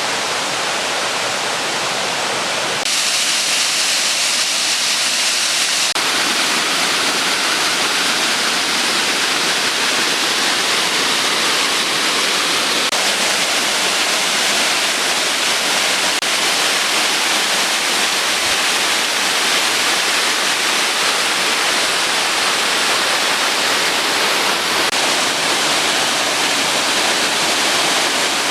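Waterfall: steady, loud rushing of falling water. Its tone shifts abruptly about three seconds in and again about six seconds in.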